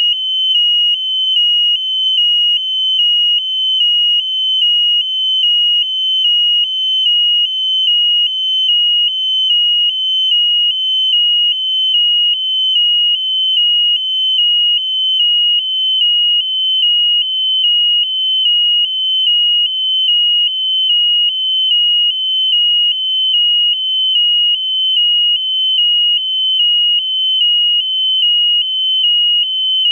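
Electronic alarm buzzer sounding a continuous high warble that switches between two close pitches a little more than once a second.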